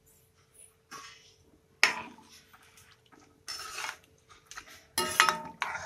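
A metal spoon stirring salt into water and grated coconut in a shallow pan, clinking and scraping against the pan in several separate strokes. The loudest, with a ringing note, comes about five seconds in.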